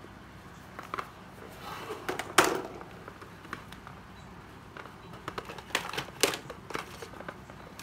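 Scattered clicks and knocks of hard plastic cordless drills being handled and set down on a tiled floor, with one louder knock about two and a half seconds in and a quick run of clicks around six seconds. No motor is run.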